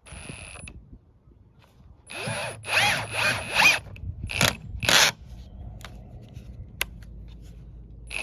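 Ryobi cordless drill/driver running in a series of short trigger bursts, its motor speed dipping and recovering under load, with a couple of small clicks in between.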